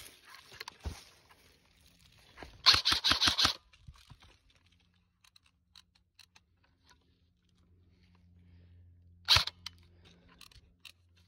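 Dry leaf litter rustling and crunching as someone moves over it, with a loud flurry of quick crunches about three seconds in and a single sharp crunch near the end.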